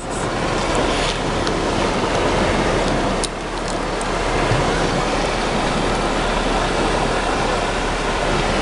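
Steady sea surf mixed with wind on the microphone, a constant loud rushing noise that dips briefly about three seconds in.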